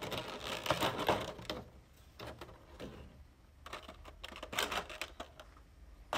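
Thin clear plastic blister packaging being handled: crinkling and crackling for the first second and a half, then scattered light plastic clicks and taps, with one sharper click near the end.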